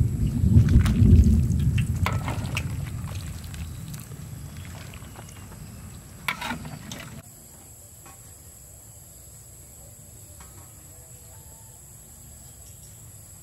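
A pot of curry simmering over a fire, with a low rumble and a few sharp clicks that fade away over several seconds. About seven seconds in it cuts abruptly to a much quieter, steady outdoor background.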